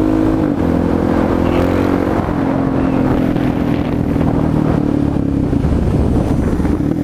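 Suzuki DR-Z400SM supermoto's single-cylinder four-stroke engine running at road speed, its note stepping down twice in the first couple of seconds, with wind rushing over the helmet-mounted microphone.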